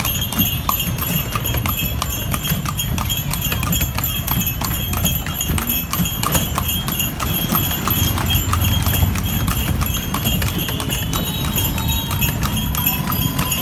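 Horse's hooves clip-clopping steadily on brick paving as it pulls a cart, over a low rumbling.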